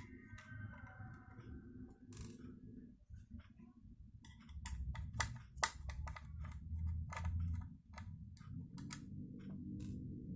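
Irregular sharp clicks and light knocks of laptop parts being handled as the hard disk is taken out of its bay, over a low handling rumble.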